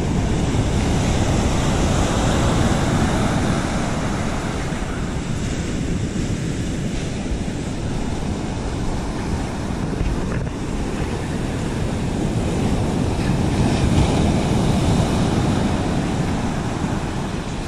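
Surf breaking on the beach, with wind buffeting the microphone: a steady rushing noise that swells and eases.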